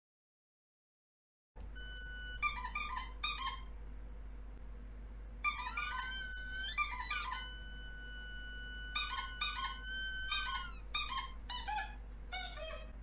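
Rubber squeaky dog toy squeezed again and again, starting about a second and a half in: quick runs of two or three high squeaks, with a longer held squeal a little past the middle, over a steady low hum.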